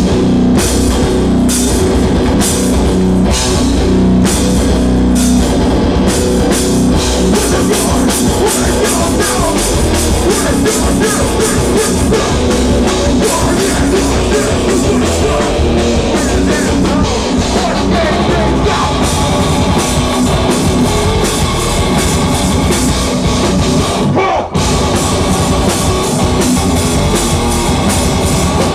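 A hardcore band playing live and loud: distorted guitar, bass guitar and drum kit, dense and continuous, with a split-second break in the playing near the end.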